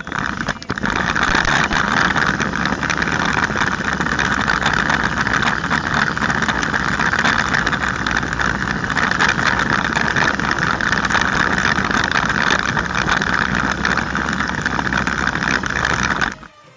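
Homemade RC car running: its small electric drive motors and gearing whir steadily with a rough rolling noise. The sound stops abruptly near the end.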